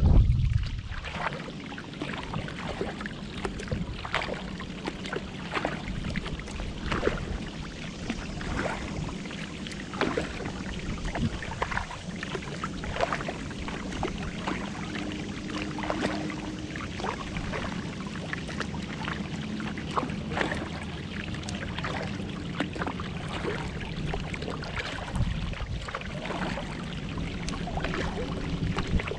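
Kayak paddle strokes: short splashes and drips from the paddle blades about once a second over a steady watery hiss. A gust of wind hits the microphone at the very start.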